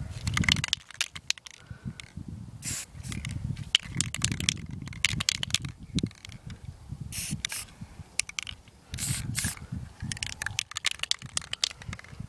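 Aerosol spray-paint can sprayed in a series of short hissing bursts, irregularly spaced, with a low rumbling noise underneath.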